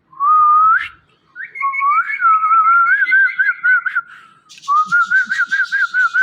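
Indian ringneck parrot whistling: a short whistle that rises at its end, then two long warbling whistles with a fast wavering pitch, the last with a raspy noise over it.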